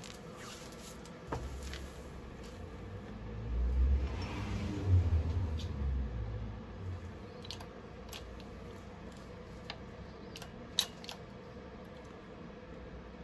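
Hands handling steel parts at a hydraulic shop press while a steel block is set on top of a spindle shaft: a low rumbling handling noise in the first half, then several light metallic clicks and taps, the sharpest near the end.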